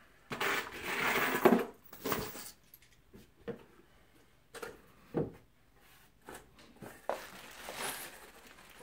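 A cardboard box of TV wall-mount parts being handled. A rustling scrape runs through the first two seconds, followed by scattered light clicks and knocks as the lid flap is lifted and parts inside are moved, with more rustling near the end.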